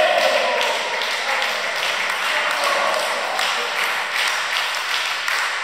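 A small group of spectators clapping unevenly after a point, with a cheering shout trailing off at the start.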